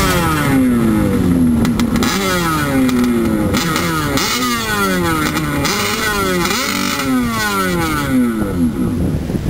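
Personal watercraft engine revving up sharply and winding down, over and over, about eight times in quick succession.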